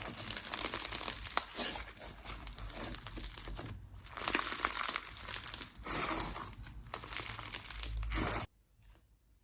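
Slime being squished and stretched by hand, a dense run of small clicks and pops that cuts off suddenly about eight and a half seconds in.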